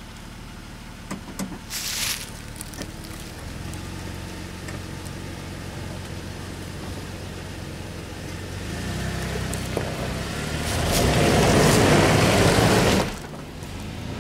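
Jeep Wrangler JK engine running at low revs while the driver works it out of a mud rut. It is revved up from about nine seconds in, with a loud rush of wheelspin in mud about eleven to thirteen seconds in, then it drops back suddenly.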